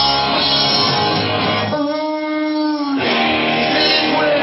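Live rock band playing loud electric guitar, bass guitar and drums. About two seconds in the band stops for about a second, leaving a single held note, then crashes back in.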